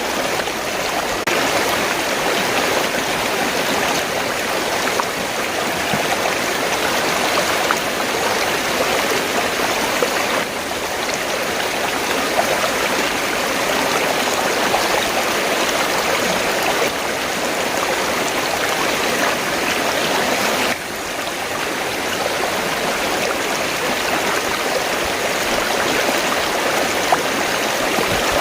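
River water flowing, a steady rushing, with the level dropping slightly twice.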